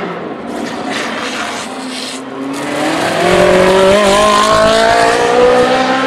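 Ferrari 458 Challenge race car's 4.5-litre V8 accelerating out of a chicane. Its note rises steadily and grows louder over the second half.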